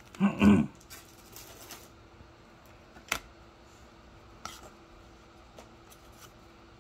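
Trading cards and a clear plastic card holder being handled quietly: a few light clicks and taps, the sharpest about three seconds in, over a faint steady hum. A short voice sound comes right at the start.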